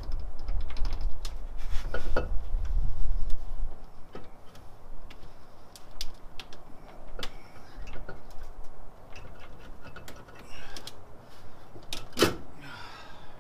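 Scattered light metallic clicks and knocks as an LS1 cylinder head is handled and seated over its head studs. There is a low rumble in the first few seconds, and one sharper click near the end.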